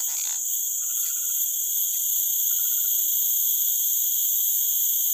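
Steady, shrill insect chorus of forest crickets or cicadas, a continuous high-pitched drone. A faint, short pulsing call sounds twice, about a second in and again around two and a half seconds.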